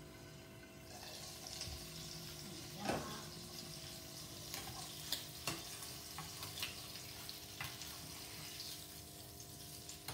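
Ham frying in oil in a pan on a gas hob. The sizzle comes up about a second in as the lid is lifted off. A knock comes near three seconds in, then sharp clicks and pops as the ham is turned with metal tongs.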